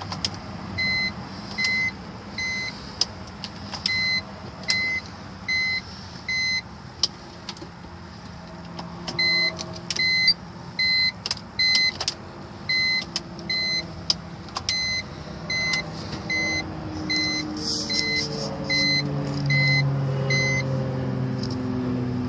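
Runs of short, high electronic beeps, about one and a half a second, mixed with scattered sharp clicks. From about sixteen seconds in, a low hum slides slowly down in pitch.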